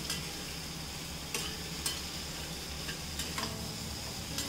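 Potato and papaya pieces sizzling in oil in a stainless steel kadhai while a metal slotted spatula stirs them, with several sharp scrapes and taps of the spatula on the pan.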